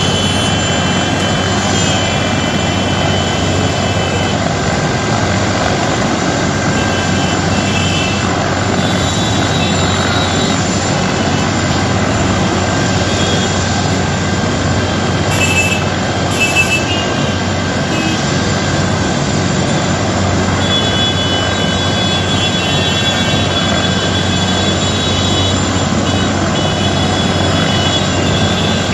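Helicopter running on the ground with its rotor turning: a loud, steady rush of rotor and engine noise with a thin high whine over it.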